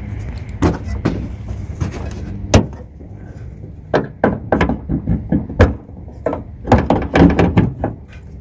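Hood of a 2012 Toyota Prius plug-in being opened and propped: the latch released, the hood lifted and its metal prop rod set in place, in a string of clicks, clunks and rattles. The sharpest knock comes about two and a half seconds in, with dense bunches of knocks later on.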